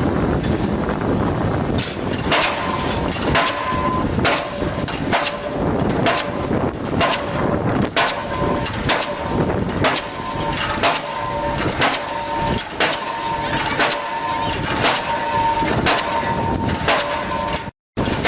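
Link-Belt diesel pile hammer firing steadily, about one sharp bang a second, each blow followed by a metallic ring. A steady rumble comes before the blows begin about two seconds in, and the sound cuts out briefly near the end.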